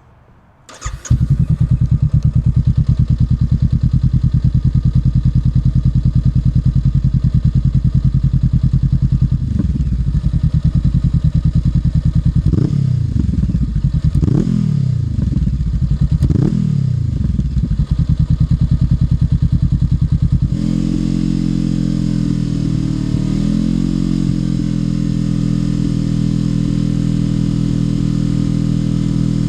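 Honda NX500's parallel-twin engine through a Black Widow UN30H slip-on exhaust with the dB killer removed. It starts about a second in, idles, and is blipped in several short revs. About twenty seconds in the sound cuts to a different steady engine note.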